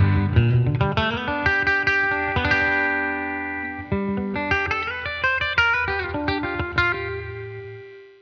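Fender American Acoustasonic Telecaster played on its electric voice, the magnetic bridge pickup with a clean tone, through a small Fender amp. It plays a run of quick picked single notes, then notes left ringing that fade out near the end.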